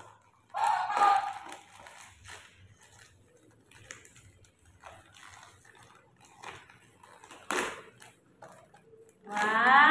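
Gift-wrapping paper crinkling and tearing as a present is unwrapped by hand, in scattered crackles. There is a louder burst about half a second in and a short sharp rip about three-quarters of the way through.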